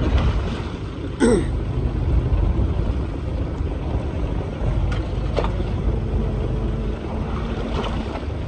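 Steady low rumble of a fishing boat's engine, with wind and sea noise. A brief vocal sound comes about a second in, and a few sharp clicks come around the middle.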